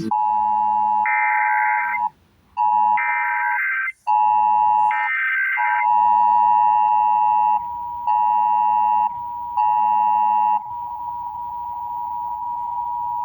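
Emergency Alert System test signal: three roughly one-second bursts of screechy digital data tones, the SAME header, over a steady tone. These are followed by the steady two-tone attention signal, which drops in level and evens out around eleven seconds in.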